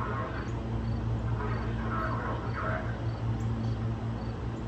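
An insect chirping in a steady rhythm, short high-pitched chirps about two to three a second, over a steady low hum.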